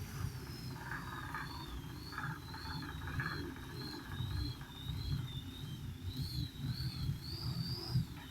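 Rapid knocking in short clattering clusters, over a thin high whine that wavers up and down and a steady low rumble: the knocking fault being recorded on an Arion Digital.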